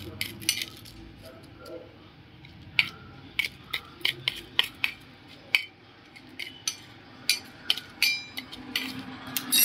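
Metal spoon clinking and scraping against a stainless steel bowl while tossing chopped onion, tomato and sev: irregular sharp clicks, one ringing briefly about eight seconds in.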